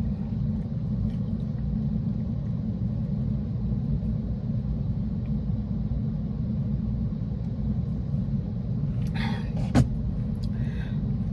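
Steady low rumble of a parked car's engine running, heard from inside the cabin. About nine to ten seconds in, a brief rustle and a sharp click.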